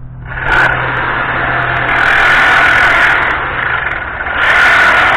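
A motor running steadily over a low hum. It gets louder and harsher about half a second in, eases briefly near four seconds, then gets louder again.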